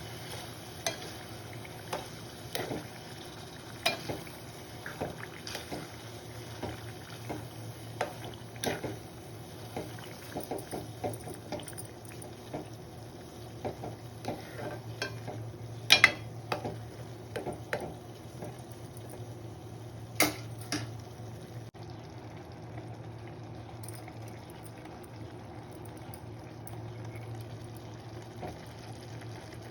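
A spoon stirring a pot of simmering leafy curry, knocking and scraping against the pan about once a second, with two sharper knocks past the middle and fewer strokes near the end. A steady low hum and soft bubbling run underneath.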